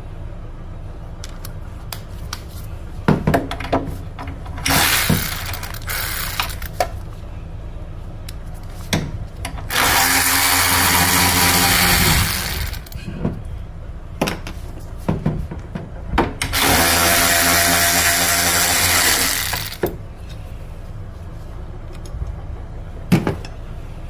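A cordless power tool spins out the bolts of an engine-bay bracket: a short run about five seconds in, then two longer runs of about three seconds each. Clicks and knocks of tools and parts being handled come in between.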